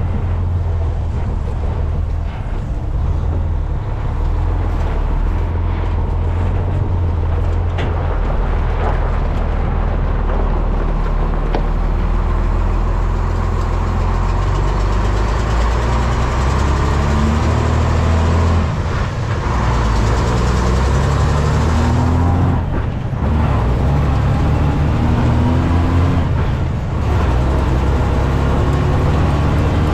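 Heavy farm machinery engine running steadily during corn harvest, a deep drone whose pitch shifts a little now and then.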